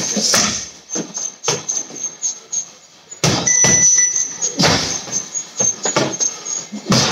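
Punches and kicks landing on a heavy punching bag in quick, irregular strikes. About three and a half seconds in, a short high beep sounds, the reaction cue to strike hard, and a burst of heavy hits follows.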